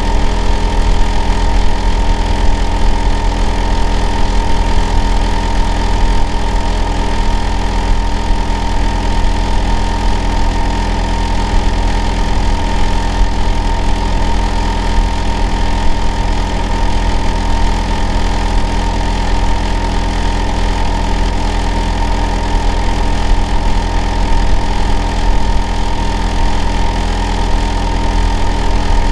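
Hitachi air-conditioner outdoor unit running without pause: a loud low hum with a steady whine near 1 kHz and several other fixed tones above it. The neighbour next door counts it as abnormally noisy.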